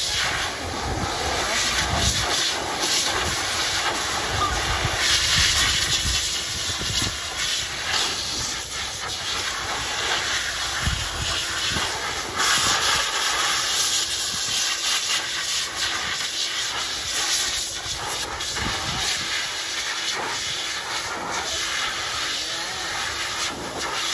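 K-9 II two-motor high-velocity dog dryer running with both motors, a steady rushing hiss of air from the hose and nozzle that swells and fades every few seconds as the nozzle is moved through a wet puppy coat.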